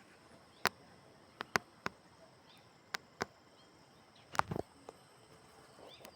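A steady high insect drone, broken by a scatter of sharp clicks, with the loudest cluster about four and a half seconds in.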